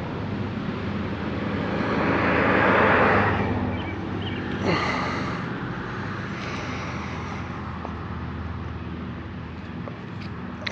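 Steady low machine hum with a swelling rush of hiss about two to three seconds in and a shorter, fainter one near five seconds.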